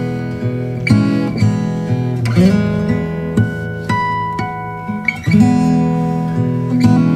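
Acoustic guitar music played from a phone through a home-built 5-ampere power amplifier and its speaker cabinets, with plucked and strummed guitar notes struck one after another and ringing out.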